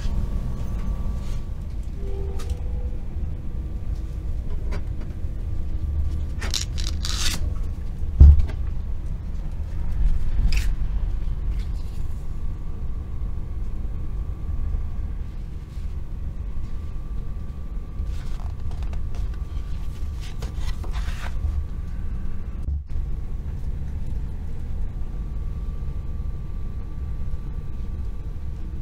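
Steady low rumble of a Stadler KISS double-deck electric Intercity train running, heard inside the passenger cabin, with a faint steady high whine. Paper leaflets are handled and rustled over it, with a short thump about eight seconds in.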